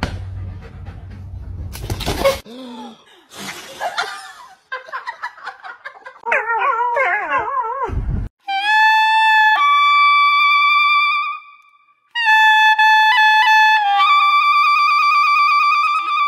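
Loud held notes of a wind instrument, like a trumpet or horn, stepping from pitch to pitch as a short tune from about eight seconds in. Before them comes a brief warbling, wavering whine.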